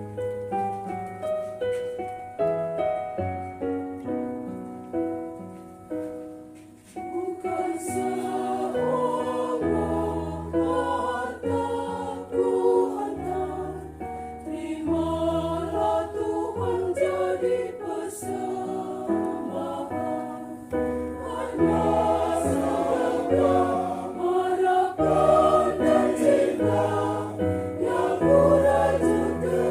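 Mixed church choir singing a hymn with keyboard accompaniment; the keyboard plays alone at first and the voices come in about seven seconds in, growing fuller and louder toward the end.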